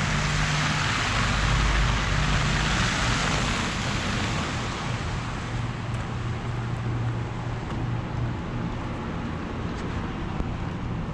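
City street traffic: the rushing tyre noise of passing vehicles, loudest in the first few seconds and then easing, over a low steady engine hum.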